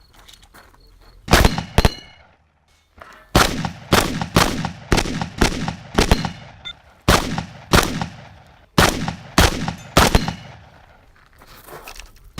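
Practical shotgun being fired in rapid strings, about fifteen shots roughly half a second apart, broken by short pauses.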